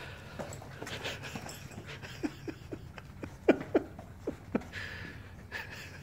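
A dog in rubber booties walking on a tile floor, its booted feet making a string of short, irregular scuffs and taps. The loudest two come about three and a half seconds in. The dog pants between them.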